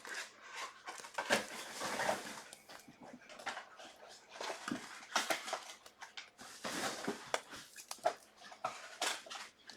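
Trading cards being handled: cards sliding and rustling against each other, with light irregular clicks and taps.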